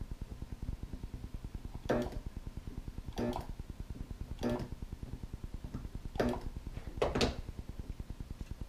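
A battery spot welder zapping connections onto 18650 lithium cells: five sharp snaps a second or so apart, over a fast, steady low pulsing hum.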